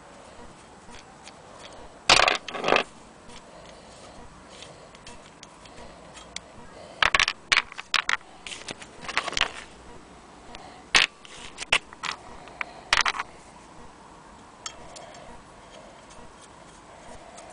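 Irregular knocks, clicks and scrapes as the hand crank of an antique Willcox & Gibbs sewing machine is handled, loudest about two seconds in, with a cluster of them in the middle.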